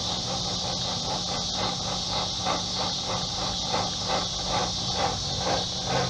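Homemade smoke machine, converted from a fog machine, running as it pushes smoke into the intake for a vacuum-leak smoke test. It gives a steady hiss over a low hum, with a rhythmic pulsing about twice a second that grows stronger toward the end.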